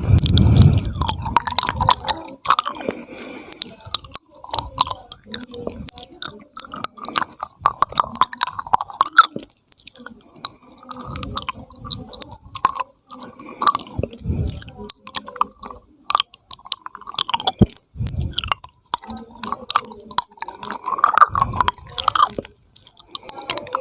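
Intense ASMR mouth sounds: wet, irregular clicking and popping of lips and tongue, coming in clusters with short pauses between them.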